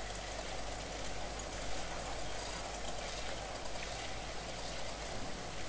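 Steady outdoor hiss of light wind around a small spinning wind turbine, with no distinct knocks or events.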